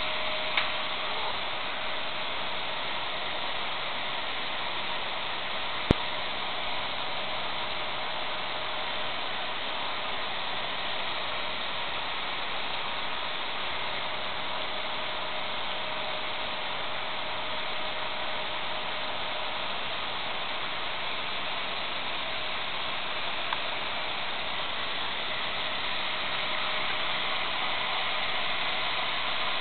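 Steady hiss of background noise with a faint steady hum, broken by one sharp click about six seconds in.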